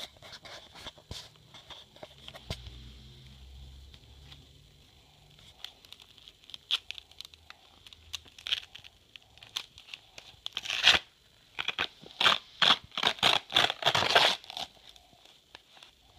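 A paper envelope and letter crinkling and tearing as a baby pulls it open. Scattered rustles at first, then a loud run of rapid tears and crinkles a little past the middle.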